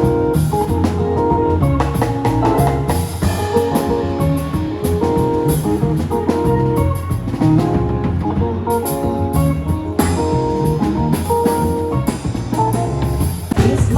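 Live band playing an instrumental passage, with guitar and drum kit over a steady beat.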